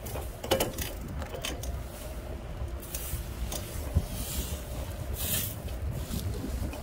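A slow-moving ride over cracked asphalt: a steady low rumble of motor and wheels, with a couple of sharp knocks, about half a second and four seconds in, and a few brief bursts of hiss.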